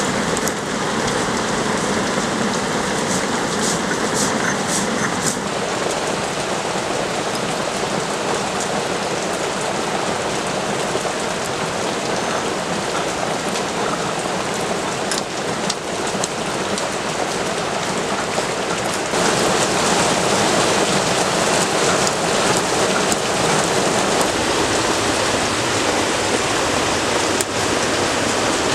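Continuous rasping hiss of a hand grater scraped back and forth over a wooden board, grating a white paste. About two-thirds in, a louder, even hiss takes over.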